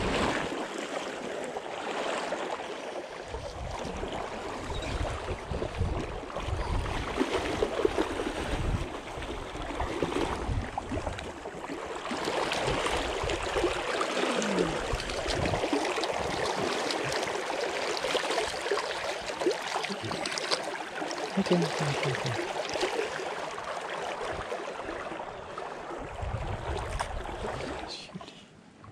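Shallow creek water splashing and rushing as a dog wades and splashes through it close by, with irregular low rumbles underneath.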